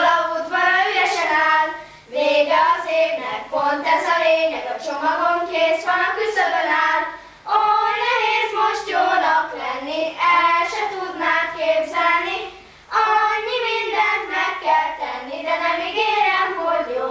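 A small group of four children singing a song together, in phrases with short breath pauses about every five seconds.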